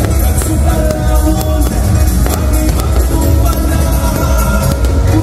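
Loud music with singing over a strong, steady bass.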